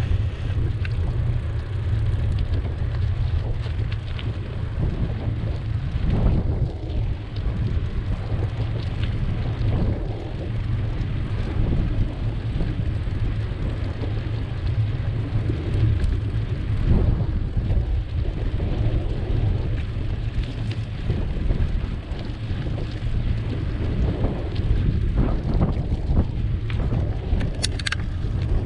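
Wind buffeting the microphone of a camera riding on a moving bicycle, a steady rumble, with tyre and road noise from the asphalt. A brief high-pitched squeak comes near the end.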